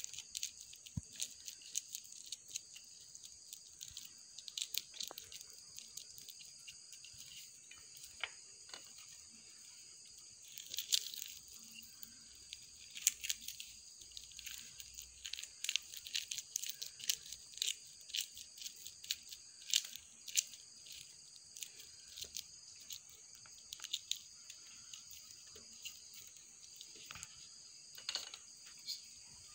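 Kitchen knife cutting a peeled banana into small pieces held in the palm: faint, irregular soft clicks and ticks as the blade goes through the fruit, over a steady high hiss.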